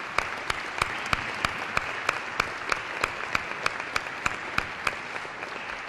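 Audience applauding, with one person clapping close to the microphone in a steady beat of about three claps a second over the dense applause; the applause thins out near the end.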